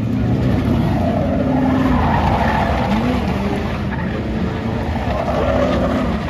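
Dirt-track race cars running at speed around the track, their engines loud and continuous with pitch shifting as the cars go by.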